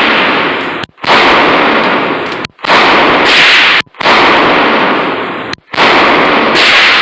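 Walther PPQ pistol fired four times in an indoor range, about a second and a half apart. Each shot is a sudden blast that overloads the recording and leaves a loud, ringing wash of noise until the next.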